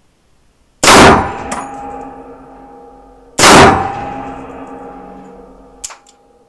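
Two rifle shots from a Walther WA 2000 semi-automatic rifle in .300 Winchester Magnum, about two and a half seconds apart, each with a long ringing tail in the indoor range; a short sharp click follows near the end. The rifle fails to cycle after the second shot.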